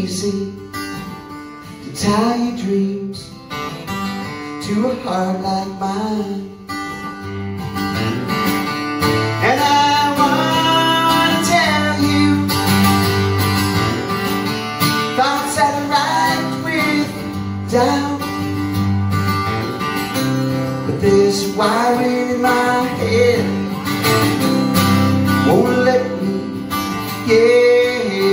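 A man singing to his own strummed twelve-string acoustic guitar, played live through a PA; the playing is softer for the first several seconds, then fuller strumming with deeper bass notes comes in.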